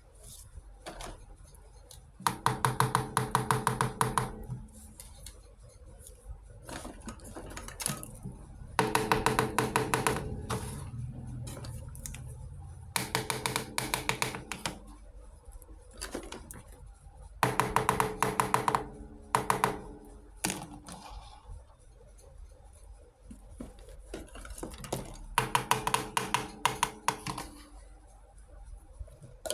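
Small plastic toy kitchen pieces being handled, with five bursts of rapid rattling clicks about two seconds long and scattered lighter clicks between them.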